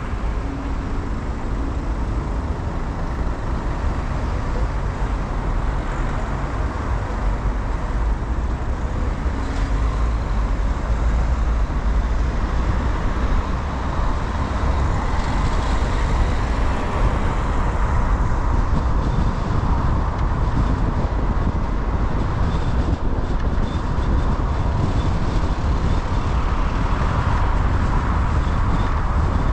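A car driving in town traffic: a steady, low rumble of engine and road noise that grows a little louder after about ten seconds as the car pulls away from the traffic lights.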